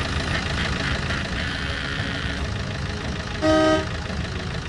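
Cartoon taxi sound effects: a steady low engine hum as the car drives, and one short car-horn toot about three and a half seconds in, the loudest sound.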